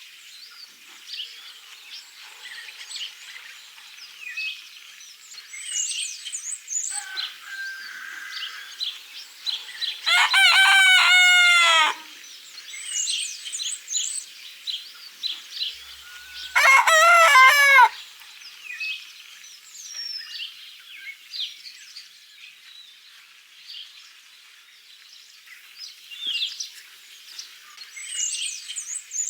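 A rooster crows twice, each crow about two seconds long and the loudest sound, while small songbirds chirp steadily throughout.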